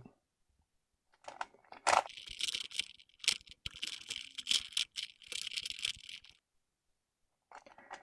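Layers of a plastic Rubik's 4x4 cube being twisted by hand: a run of quick clicks and scraping rattles that starts about a second in and stops about six seconds in.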